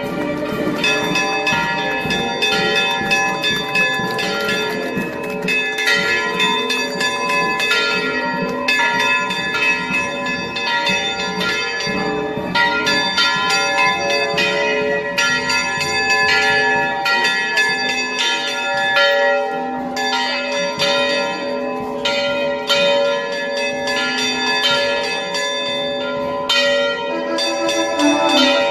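Church bells ringing a festive peal, struck in quick succession with their tones ringing on and overlapping.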